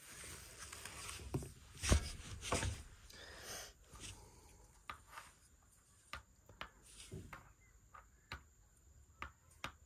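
Dice and plastic playing pieces of a Mensch ärgere dich nicht board game clicking and knocking on the board: a few soft knocks with the loudest about two seconds in, then scattered single light clicks.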